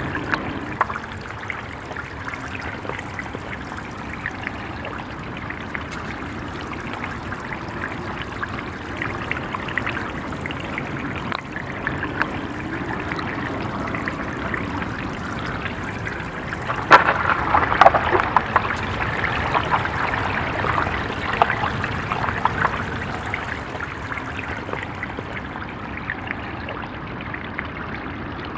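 Shallow water trickling and splashing, with many small drips and splashes; a burst of louder splashing comes about two-thirds of the way through and dies down over a few seconds.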